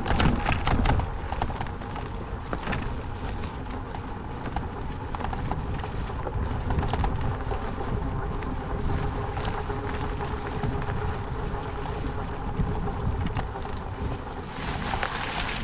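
Wheelchair with a Rehasense PAWS Tourer attachment rolling over a forest trail: tyres crunching and clicking over the ground under a steady hum, with wind rumbling on the microphone.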